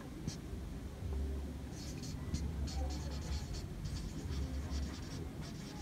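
Marker pen writing on a white board: a run of short, separate strokes, over a low steady hum.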